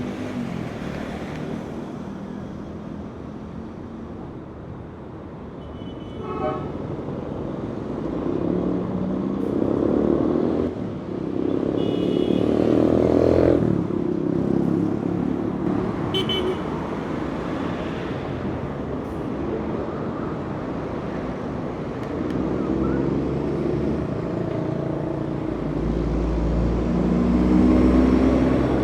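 Heavy city traffic: a steady wash of passing vehicles, with the engines of large trucks or buses swelling and rising in pitch as they pull by. Short car horn toots sound about three times in the middle.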